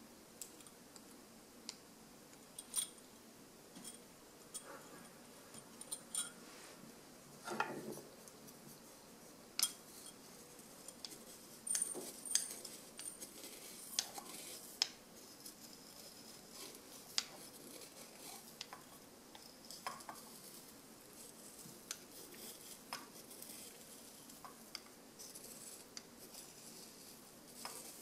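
Scattered light clinks and taps of glass swing-top jars and their wire-bail lids being handled, then a wooden spoon scooping dried peanut sprouts into a small glass jar, the dry pieces clicking against the glass.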